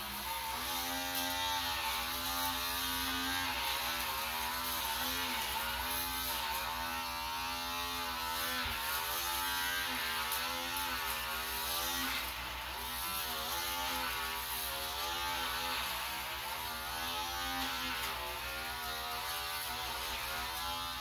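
Long-handled electric back shaver buzzing steadily as it is worked over the back, its pitch dipping and recovering again and again as the head is pressed and dragged through the hair.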